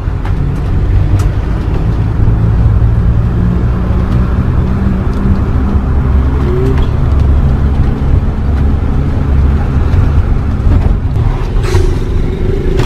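Motorhome engine running steadily as the vehicle drives, a low, even rumble heard from inside the cab.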